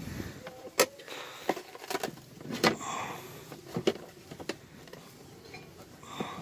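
Scattered sharp knocks and clicks, about half a dozen at uneven intervals, with faint scraping between them, as the access plate over the fuel pump is worked loose and lifted off.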